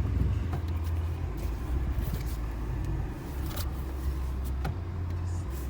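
Peugeot 208 engine running with a steady low rumble and a few faint ticks: the strange noise the owner suspects is probably coming from the exhaust.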